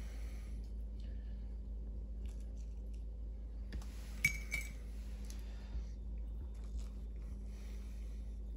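Fork and knife working baked fish off the bone: faint scrapes and small clicks, with one sharp clink of the metal cutlery about four seconds in, over a steady low hum.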